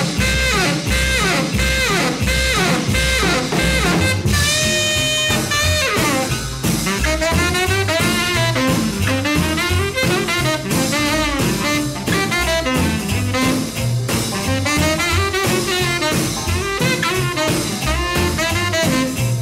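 Instrumental break of a 1950s rock and roll record: a saxophone solo with bending, wavering notes and one long held note, over drums and a bass line.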